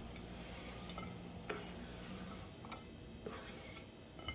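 A few light clicks and taps as diced raw fish is slid off a wooden cutting board onto a ceramic plate and pushed into place by hand, over a faint steady hum.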